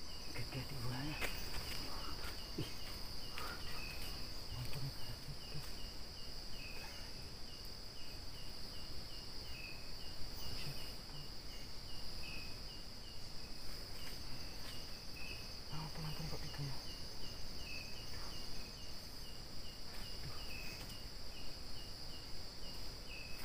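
Night insect chorus: crickets keep up a steady high-pitched trill, while a second insect chirps at an even pace of about twice a second. A few short low hums come through now and then.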